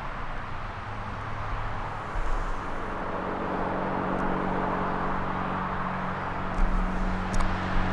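Road traffic: a steady hiss of tyres and engines, with a vehicle's engine hum growing louder through the second half.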